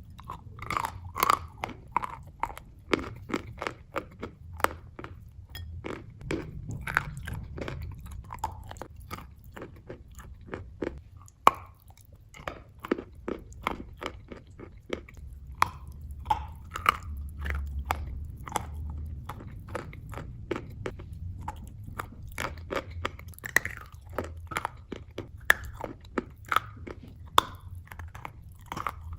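Crunchy food being bitten and chewed: an irregular run of sharp crunches, several a second, with one loud crunch about eleven seconds in.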